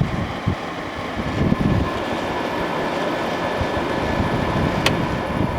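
Kenmore 5000 BTU window air conditioner running with its fan on high: a steady rush of airflow with a faint hum from the running unit. A single sharp click sounds near the end.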